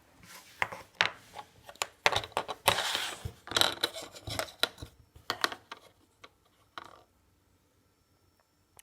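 Irregular clicks, taps and short scrapes of small objects being handled, falling quiet after about seven seconds.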